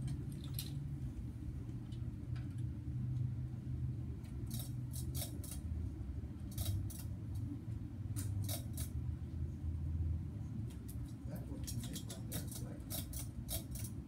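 Several ceiling fans running together, a steady low hum. Over it come bursts of small light metallic clicks and rattles, several times, as a fan's pull chain and its hanging tag are handled.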